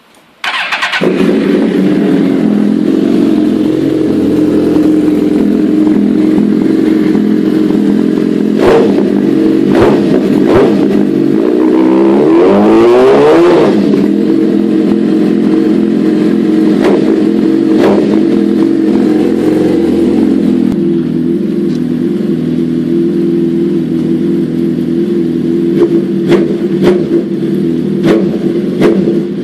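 Suzuki GSX-R1000 K8's inline-four engine, breathing through an M4 GP stubby exhaust with the dB killer removed, starts about half a second in and runs at a loud idle. It is revved up and back down once around the middle and blipped sharply a few more times. Toward the end it sounds muffled, heard from inside a car about 7 m away.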